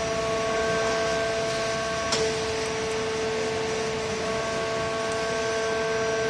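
ITL CSNC 100 high-speed circular sawing machine running without cutting: a steady hum with several steady whining tones over a hiss, and a single click about two seconds in.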